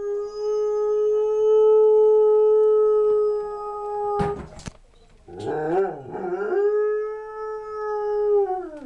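Sheepdog-husky mix dog howling: a long, steady howl, a brief knock about four seconds in, then a wavering, yodelling stretch and a second long howl that drops in pitch at the end. The howl is a response to a siren.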